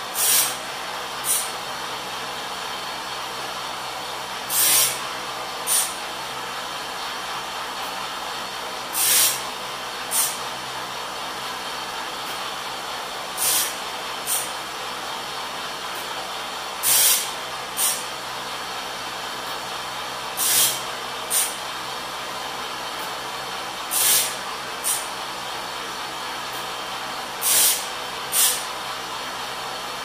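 Home-built bandsaw-mill blade sharpener running: a Foley chainsaw sharpener's grinding wheel hums steadily and grinds into the blade's teeth with a loud hiss in pairs, a longer grind then a shorter one about a second later, repeating every three and a half seconds or so as the wiper-motor push arm indexes the blade tooth by tooth.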